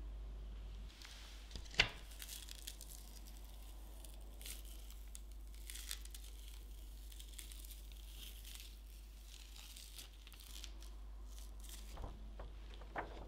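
Clear plastic acetate cake collar crinkling as it is peeled away from a set mousse cake. A sharp click comes about two seconds in, and a few smaller clicks near the end.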